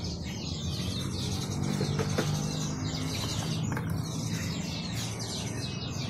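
Many caged small songbirds chirping at once, a dense chatter of short, overlapping, falling chirps that never lets up, over a steady low hum.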